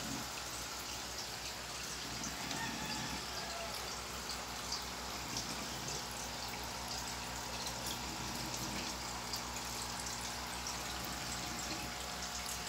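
Small aquarium air pump humming steadily, with air bubbling and trickling through the water of the betta cups in many small pops and drips.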